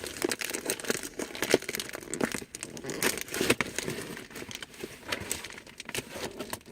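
Packaging being opened by hand: irregular crinkling and crackling, with some tearing.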